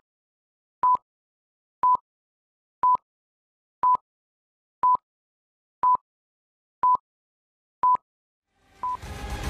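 Film-leader countdown beeps: a short, high, steady tone sounding once a second, about nine times, with silence between. Near the end, music fades in and swells.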